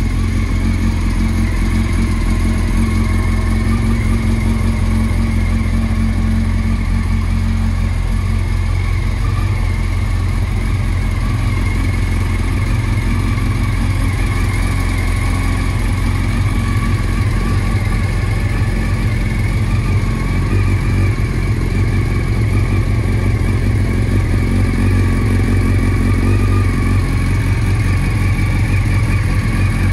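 1997 Honda CBR900RR FireBlade's inline-four engine idling steadily.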